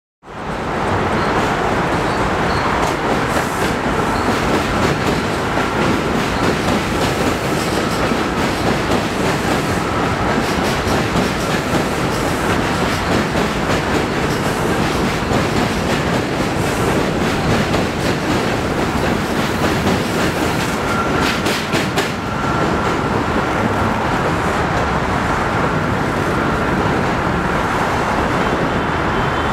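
New York City Subway train rolling across a steel bridge: a heavy, steady rumble with wheels clattering over the rail joints, and a faint thin wheel squeal now and then.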